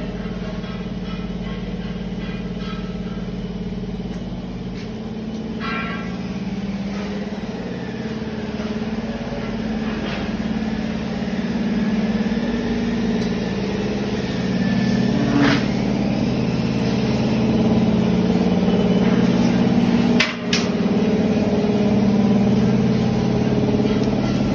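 Steady hum of running workshop machinery: a low drone made of several steady tones that grows somewhat louder in the second half. A single short sharp knock sounds about twenty seconds in.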